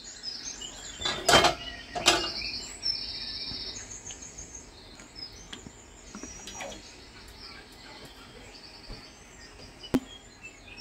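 Small birds chirping in short repeated bursts, with two loud knocks about a second and a half and two seconds in, and a single sharp click near the end.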